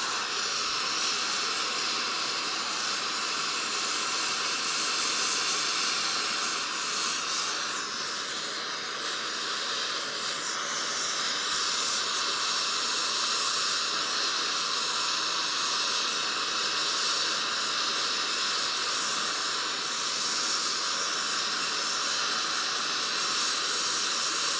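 An oxy-fuel torch with a rosebud heating tip hissing steadily, its open flame playing on a cast-iron casting while brazing rod is melted in to build up a braze repair.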